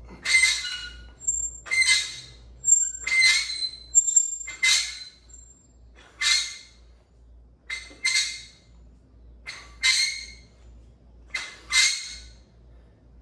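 A weightlifter's sharp, hissing exhalations, one with each barbell curl repetition, about every one and a half to two seconds.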